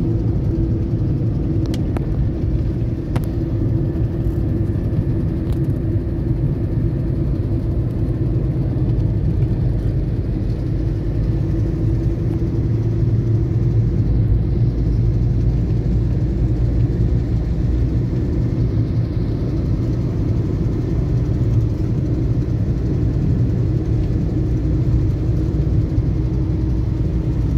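Steady low rumble of a moving road vehicle, engine and tyre noise heard from inside the cabin.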